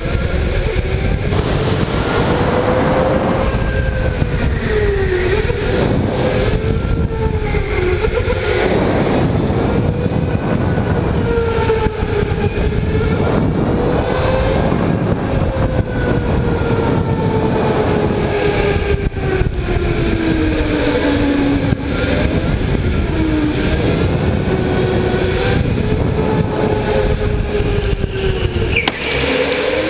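Electric go-kart motor whining, its pitch rising and falling over and over as the kart speeds up and slows through the corners, over a steady low rumble.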